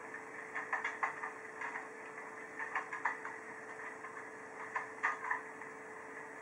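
Train wheels clicking over rail joints in uneven clusters of clicks every second or so, over a steady hum.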